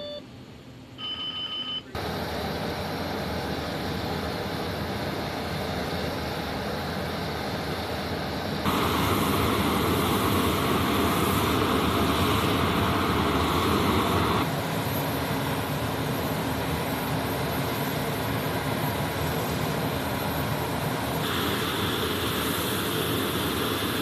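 A few short electronic cockpit tones, then the steady noise of a C-17 Globemaster III's jet turbines running on the ramp. It steps louder about nine seconds in and drops back about five seconds later.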